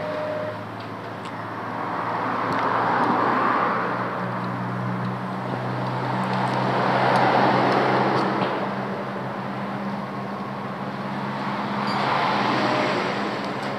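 Passing road traffic: a steady low engine hum with broad traffic noise that swells and fades three times as vehicles go by.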